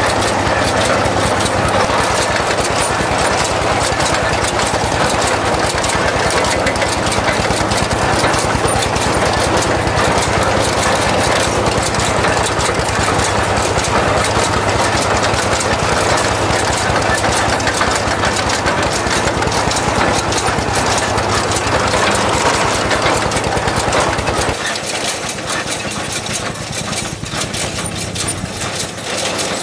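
A DT-20 tractor's single-cylinder diesel engine runs with a rapid, steady knock, under the clatter of the self-loading hay wagon's pickup and feed working as it takes up hay. About 24 seconds in, the deep part of the sound drops away and the whole goes quieter as the rig moves off.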